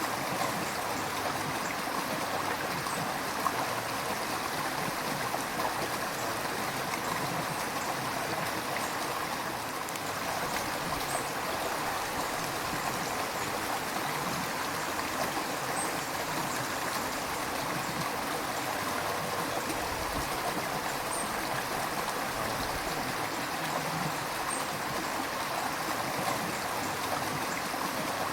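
River water flowing steadily, an even rushing of current over stones with small splashes and gurgles.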